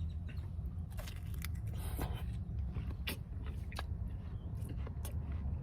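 Close-up chewing and biting of juicy watermelon, with scattered short wet crunches and smacks. A steady low hum runs underneath.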